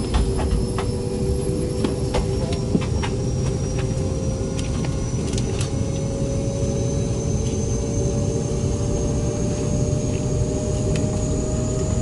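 Boeing 717-200's rear-mounted Rolls-Royce BR715 turbofan heard from the cabin beside it: a steady rumble under a whine that climbs slowly and evenly in pitch as the engine spools up. Scattered faint clicks sound over it.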